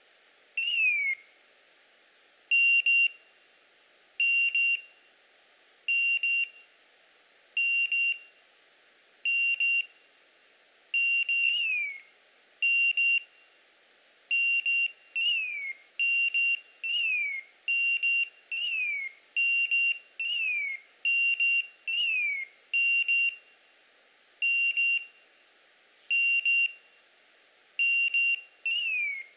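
An English setter's beeper collar sounding a string of short, high, even beeps, spaced out at first and about one a second later, with falling chirps mixed in from about ten seconds on. This is the repeated beeping a beeper collar gives while the dog stands still on point.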